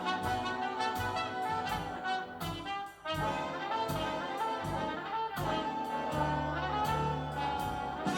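Instrumental break of a jazz-pop song: a brass horn section plays held and moving chords over a steady drum beat and a bass line.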